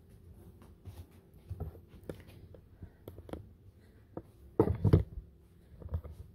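Handling noise: scattered light clicks and knocks, with a short cluster of louder thumps about five seconds in, over a faint steady room hum.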